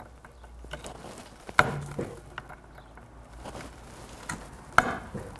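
Pressure flaking of flint: a copper-tipped flaker pressed against the edge of a flint flake resting on a wooden anvil, giving a few sharp clicks as small flakes snap off.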